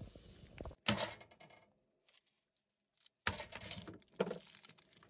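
Knocks and rustling from food being handled and set down on a truck tailgate. A sharp knock comes about a second in, then a second and a half of dead silence, then more knocks and rustles.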